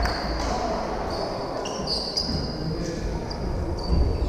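Echoing sports hall between volleyball rallies: short high squeaks of sneakers on the court floor, a ball thud near the end, and indistinct voices.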